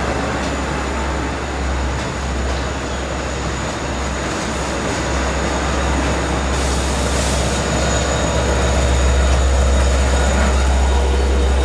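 LIRR diesel push-pull train of C3 bi-level cars with a DM30AC locomotive running at close range: a steady low engine hum under a wash of rail noise, with faint high squealing tones. It gets louder in the second half.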